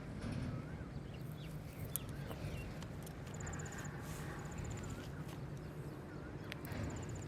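Outdoor ambience with birds calling in short wavy whistles and a fast, high trill that repeats several times, over a steady low rumble and a few small clicks.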